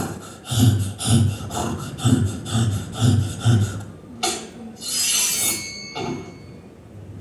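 Foley sound effects being performed: regular thuds with a scraping, rubbing texture, about two a second, then a sharp click and a short rasping slide with a thin squeak.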